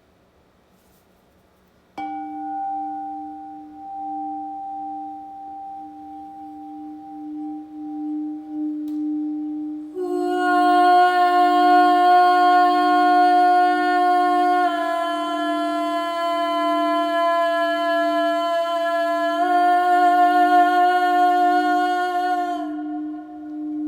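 A singing bowl is struck about two seconds in and rings on with a slow, pulsing wobble. From about ten seconds a voice joins it, singing long held tones that shift pitch twice and stop shortly before the end.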